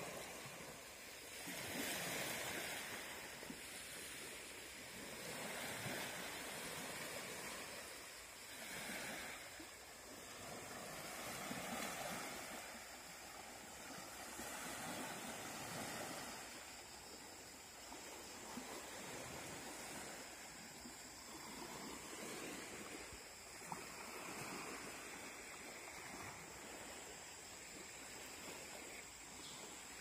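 Small waves washing gently onto a sandy beach, the surf swelling and fading every few seconds.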